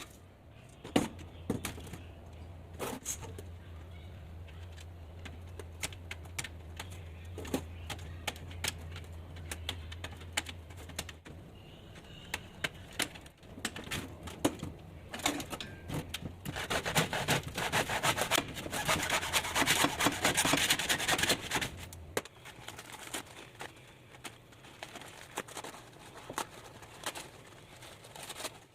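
Workshop noise from work on materials: scattered knocks and clicks, with a low steady hum for the first ten seconds or so. Past the middle comes a loud stretch of rapid scraping lasting about five seconds.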